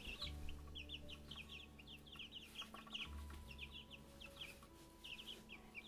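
A brood of young chicks peeping: a continuous chatter of short, high, falling peeps, several a second, from many birds at once.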